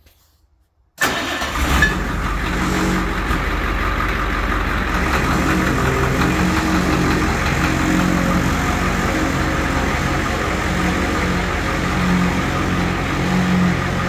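International truck's 7.3 IDI diesel V8 running steadily at a low idle, starting about a second in after a moment of near silence.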